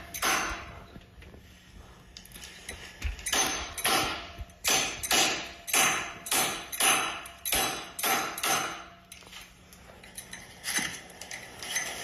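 Steel adjustable wrench striking the glass screen of a Samsung Galaxy S7 edge smartphone, a run of about a dozen sharp knocks, two or three a second, with single knocks near the start and near the end. Each blow lands on a screen that is already cracked.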